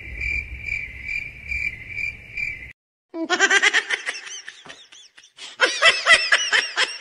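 Cricket-chirp sound effect, an evenly pulsing chirp about two and a half times a second, which stops about two and a half seconds in. After a brief silence comes high-pitched, squeaky giggling full of quick rising and falling squeals.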